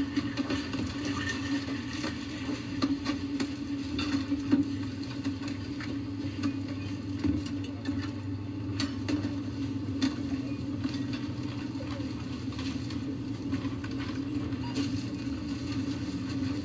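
A steady low mechanical hum with scattered light clicks and knocks.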